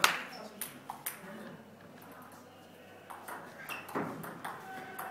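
Table tennis ball clicking off the table and the bats: a few hits in the first second, a pause of about two seconds, then a rally of hits from about three seconds in.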